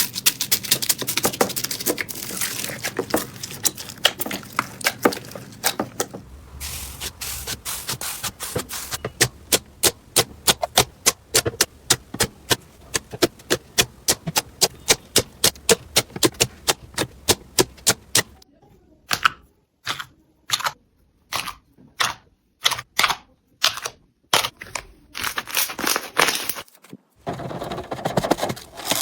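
Crunchy slime being pressed and squished by hand, making crisp crackling and clicking pops. It starts as dense crackling, turns into a quick run of sharp clicks at about three or four a second, and near the end breaks into separate crunchy bursts with short silent gaps between.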